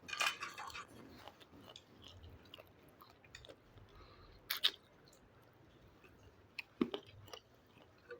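Close-up chewing and eating: soft mouth noises with scattered small clicks, and a couple of sharper clicks about four and a half and seven seconds in.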